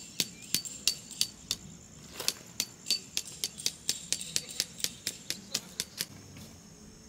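A hammer drives a tent stake into gravel, about three blows a second, each a sharp metallic clink with a short ring. There is a brief pause near two seconds in, the blows come quicker after it, and they stop about six seconds in.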